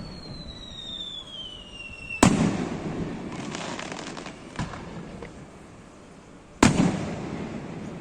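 Fireworks: a whistle that falls steadily in pitch for about two seconds ends in a loud bang as a shell bursts, followed by crackling, a smaller pop, and a second loud burst near the end.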